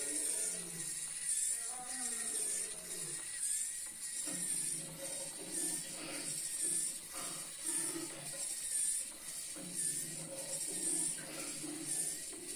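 Small electric motor whirring as it drives a lion automaton's plastic gears and wooden linkages, with a rhythmic clicking clatter that swells about once a second as the legs and head go through each cycle.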